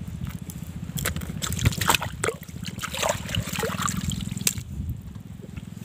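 Water splashing and trickling in short, irregular bursts over a steady low hum, the splashing stopping about four and a half seconds in.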